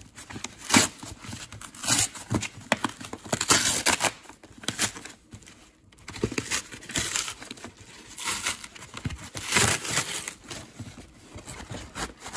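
A corrugated cardboard mailer being torn open by hand: a run of irregular rips and crinkling as the cardboard and its paper facing are pulled apart.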